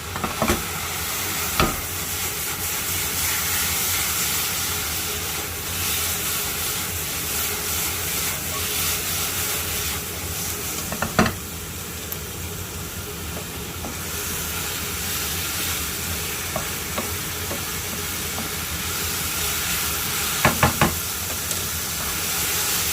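Pork belly sizzling in soy-sauce seasoning in a frying pan, stirred as it cooks, with a few sharp knocks of the utensil against the pan, a cluster of them near the end.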